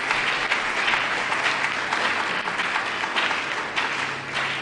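Audience applauding: a dense round of many hands clapping, with a faint steady low hum underneath.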